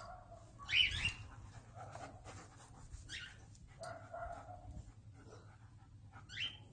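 A dog making a series of short calls, the loudest and sharpest about a second in, with others about three and six and a half seconds in.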